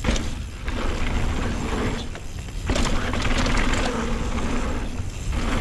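Full-suspension mountain bike (Scott Ransom) riding down a dirt downhill trail: tyres rolling over the ground and the bike rattling over bumps. Wind rushes over the chin-mounted camera, and the loudness rises and falls with the terrain.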